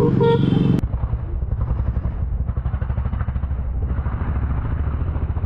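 Exhaust of an Aprilia 125 cc scooter's single-cylinder engine running steadily with its silencer opened up, a low, rapid pulsing.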